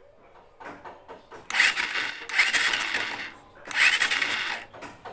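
Honda TMX 150 Supremo engine being turned over twice with its spark plug out, each cranking stroke a rasping, ratcheting burst of about a second, to test the plug's spark.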